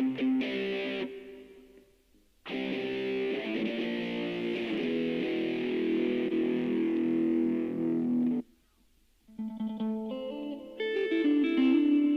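Electric guitar playing strummed chords that break off a second in. After a short gap a long chord passage starts, then cuts off suddenly, and after about a second's pause single picked notes follow.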